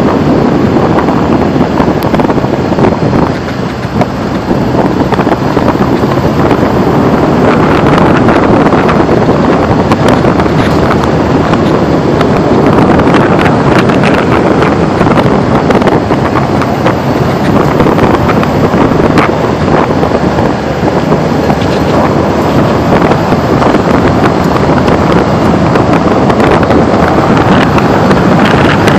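Loud, steady wind rushing over the microphone of a camera mounted outside a car driving at speed, mixed with the car's road and engine noise.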